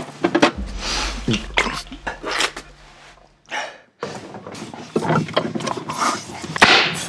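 Refrigerator-raiding sounds: short clicks and clinks of glass jars and bottles being handled at an open fridge, with a steady low hum in the first half and a short quiet gap in the middle.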